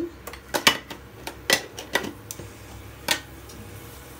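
A spoon clinking against metal cookware, five or six sharp separate clinks over about three seconds.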